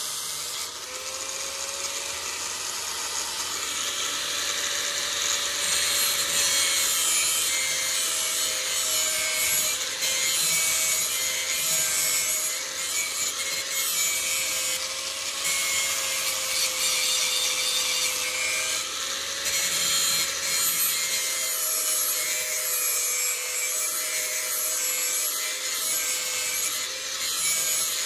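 Grinder running with a knife blade held to the wheel: a steady motor hum under a harsh grinding hiss that swells and eases as the pressure on the blade changes.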